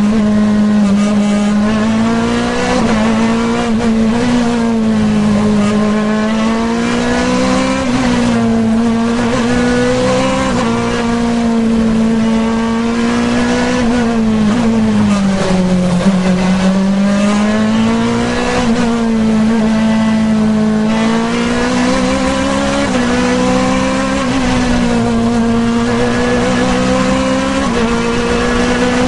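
Osella CN2 group CN 2-litre sports prototype engine, recorded onboard, running at high revs up a hillclimb. The pitch climbs and drops again and again, with sudden steps at the gear changes and a deeper dip as it slows for a bend about half-way through.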